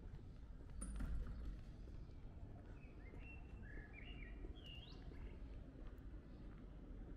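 A small songbird sings a short phrase of quick chirps from about three seconds in, over the low steady rumble of quiet street background. A sharp click sounds about a second in.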